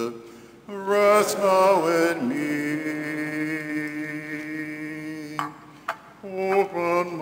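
Hymn music with long held notes, breaking briefly just after the start and again about five and a half seconds in.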